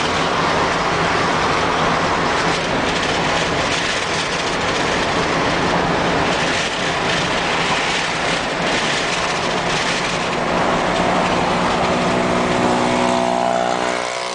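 Steady road noise of a moving car heard from inside the cabin: a continuous rush of tyres and engine.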